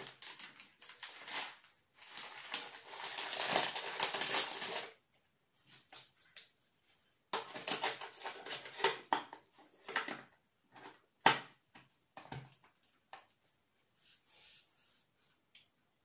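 Crinkling and rustling of gift wrapping and packaging being handled and pulled off tea packages, in two long stretches with scattered smaller crackles between. One sharp knock about two-thirds of the way through is the loudest sound.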